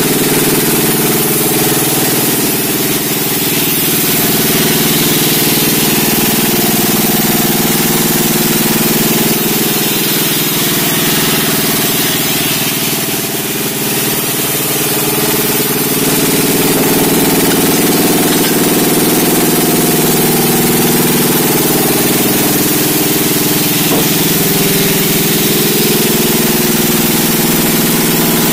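Sawmill machinery running steadily, a loud engine-like hum with a dense hiss over it. The sound dips briefly about thirteen seconds in, then picks back up.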